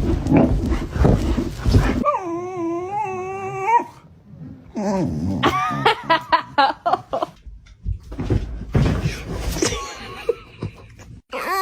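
A dog vocalizing loudly: rough, growly grumbling, then a long wavering whine about two seconds in. After a short pause comes a string of short yips and whimpers, and more rough grumbling near the end.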